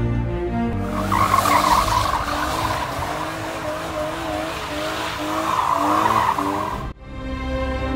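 Rear tyres of a BMW 328i E36 Touring squealing and skidding through a drift, with its 2.8-litre straight-six engine revving underneath, starting about a second in. The sound cuts off abruptly near the end, and background music is heard before and after.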